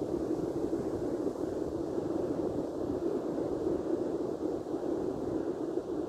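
Steady rushing wind noise on the microphone, with breaking surf mixed in.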